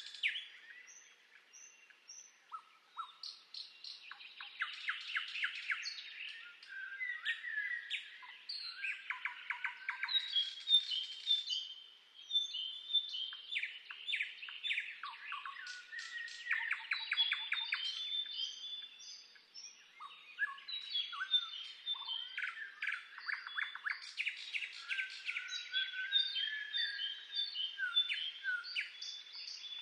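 Several songbirds singing at once, a dense chorus of overlapping chirps, rapid trills and short whistled notes.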